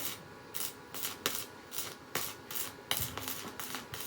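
Hand abrading of a part, a series of short rasping strokes repeating about two to three times a second.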